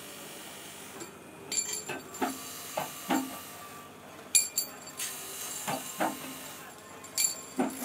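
Steel rod ground against a spinning belt-driven abrasive wheel: a hiss of grinding that comes and goes as the rod is pressed on and lifted off, with short metallic knocks and clinks every second or so.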